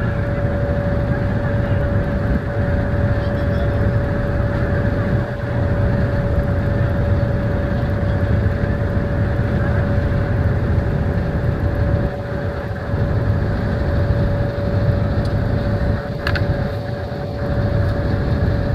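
Small motorboat's engine running steadily under way, a constant low drone with a steady mid-pitched whine over it.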